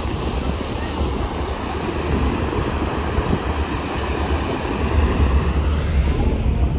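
Passenger boat under way: wind buffeting the microphone over the steady drone of the boat's engine and the rush of its churning wake.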